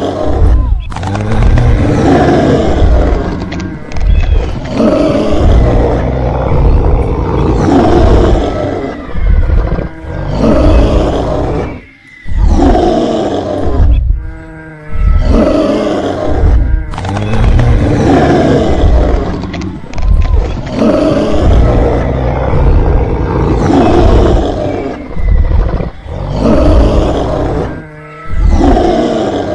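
Dubbed-in dinosaur roar sound effects: a loud string of growling roars, each a second or two long, following one another with brief breaks.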